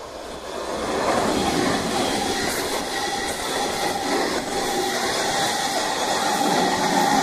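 JR West Biwako Line local electric train passing close by at speed. The rolling noise swells over the first second, then holds steady and loud with a faint steady whine and wheel clicks over the rail joints.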